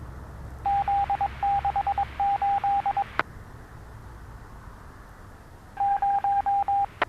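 Police radio channel carrying a single-pitched electronic beep tone, pulsed in rapid groups for about two seconds, then ending in a sharp click. A second, shorter run of the same beeps comes near the end and also ends in a click.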